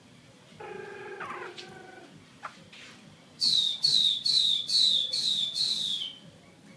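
Chinese hwamei calling: a lower, harsher call comes first, and from about three seconds in the bird gives six loud whistled notes in a row, each sliding down in pitch.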